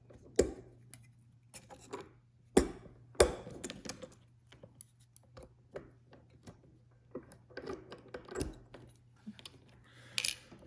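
Small metallic clicks and scrapes of a deadbolt lock cylinder being handled and its retaining clip pried off, with a few sharper snaps in the first few seconds.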